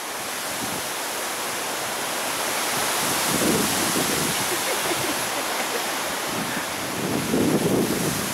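Steady rushing wind noise, with low gusts buffeting the microphone about three and a half seconds in and again near the end.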